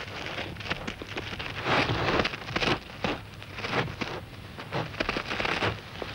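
Irregular gritty crackling and scraping in uneven surges: a dung beetle's dung ball rolling and being shoved over dry, sandy soil.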